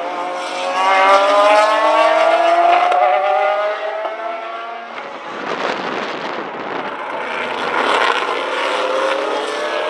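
GT racing car engines accelerating hard out of a corner, their note rising steadily in pitch for several seconds. About halfway through, the sound changes abruptly and another car's engine starts climbing in pitch again.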